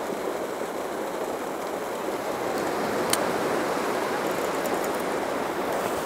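Sea surf washing steadily against the rocks, with one sharp click about halfway through.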